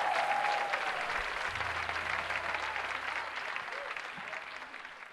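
Theatre audience applauding, with a few whoops in the first second, the clapping fading out toward the end.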